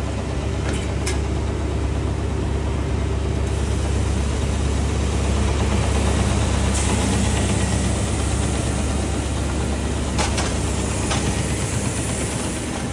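Buldog 5 wide belt sander running with a steady low hum while a stair tread is fed through on edge, its end grain being sanded: a louder hiss of sanding from about three seconds in until about eleven seconds, with a few sharp clicks near the start and near the end.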